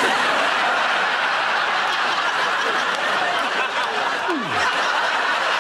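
Studio audience laughing loudly, breaking out suddenly at a punchline and holding steady.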